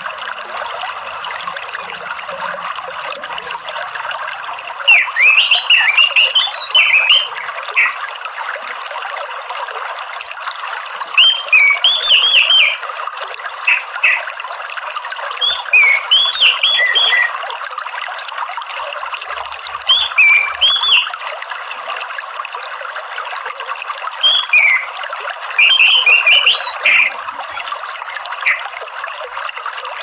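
Orange-headed thrush singing, five short phrases of quick, varied whistled notes a few seconds apart, over a steady trickle of running water.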